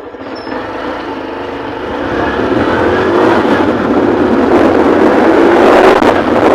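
Motorbike engine pulling away and gaining speed, getting steadily louder over the first three seconds, with wind noise on the helmet-mounted microphone building as the bike speeds up.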